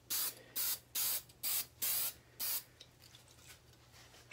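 Aerosol can of spray adhesive sprayed in about seven short bursts, roughly two a second, stopping a little past halfway. A sharp knock comes right at the end.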